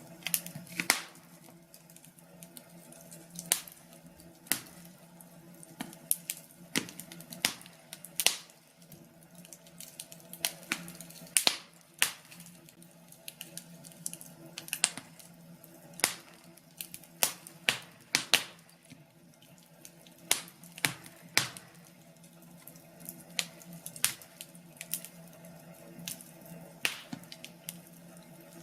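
Wood fire crackling, with irregular sharp pops and snaps over a faint steady hum.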